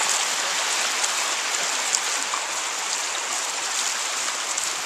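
Steady rush of shallow flowing water running across a flooded trail crossing.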